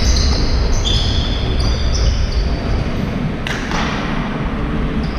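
Basketball game on a hardwood-style sports-hall court: sneakers squeaking in short high chirps and the ball bouncing, with one sharp knock about three and a half seconds in.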